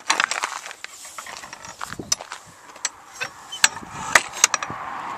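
A run of sharp, irregular clicks and knocks, a dozen or so over a few seconds, the loudest near the end, with a steady rushing noise coming up at the close.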